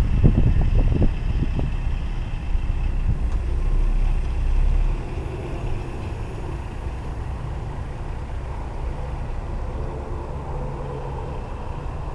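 Semi truck's diesel engine running with a steady low rumble, which drops in level about five seconds in. A few low thumps in the first second and a half.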